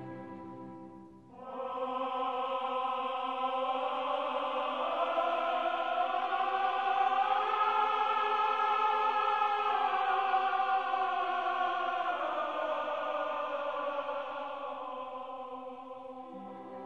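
Background music: a long, held wordless choir chord comes in about a second and a half in, slowly bends upward and back down, and fades away near the end.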